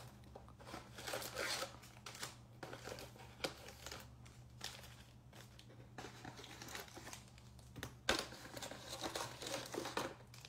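Cardboard box flaps and foil-wrapped trading card packs rustling and crinkling as the packs are pulled out of a hobby box and stacked, in short irregular bursts with one sharp tap about eight seconds in.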